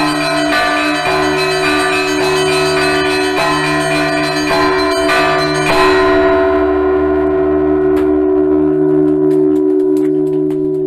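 Russian Orthodox church bells (zvon), many bells struck together in a dense peal. About six seconds in the striking stops and the bells ring on, their high tones dying away while the deep hum of the large bells lingers.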